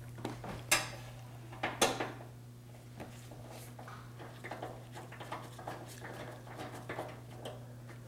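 Hand ratchet and socket clinking sharply against metal twice near the start, then a run of light, irregular ratchet clicks as a 10 mm bolt is fastened into the car's cowl panel. A steady low hum sits underneath.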